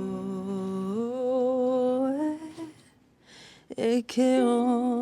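A solo voice singing slow, long held notes that glide gently in pitch. It stops for about a second near the middle, then takes up another long note.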